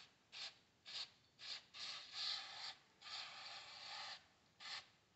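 Aerosol can of decarbonizing, rust-inhibiting spray hissing through its straw nozzle in about six short spurts, two of them about a second long.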